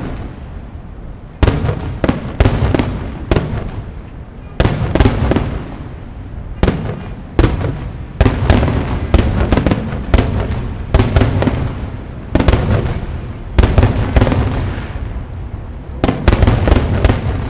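Aerial firework shells bursting in quick, irregular succession, often in clusters: sharp booms, each followed by a rumbling echo.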